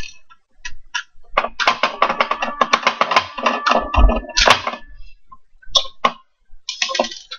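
Clicks, taps and rattles of a screwdriver and small plastic parts as the screws holding an alarm clock's circuit boards are taken out. The clatter is densest in the middle, with a heavier thud about four seconds in.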